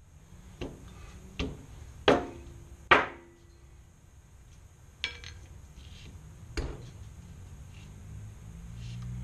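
Small metal parts and tools knocked and set down on a workbench: six sharp clinks and taps, the two loudest, about two and three seconds in, with a short metallic ring.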